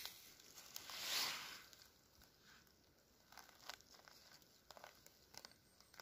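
Dry leaf litter and twigs on the forest floor rustling and crackling, faint: one louder rustle about a second in, then a few small crackles.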